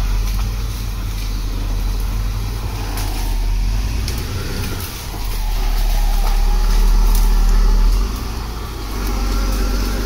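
CAT D7R crawler dozer's diesel engine running hard as it pushes soil and brush, a deep steady rumble with scattered knocks. It grows louder about five and a half seconds in and drops back about eight seconds in.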